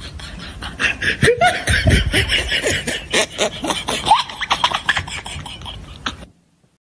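A person making vocal sounds, quick clicks and breathy bursts with short rising and falling pitch glides, like laughter mixed with mouth noises. It cuts off suddenly about six seconds in.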